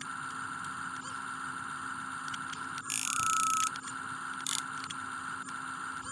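Radio-controlled model excavator's small electric motor and pump running steadily with a constant whine, with scattered clicks and one louder hissing burst lasting under a second, about three seconds in.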